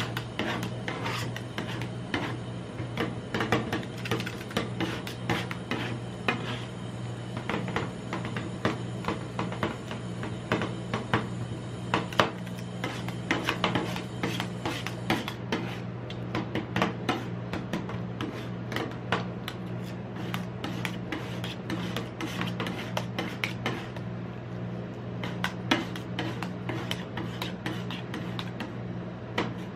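Two metal spatulas chopping and scraping ice cream mix on a steel cold plate for rolled ice cream: rapid clacks and scrapes of metal on metal, with a steady low hum underneath.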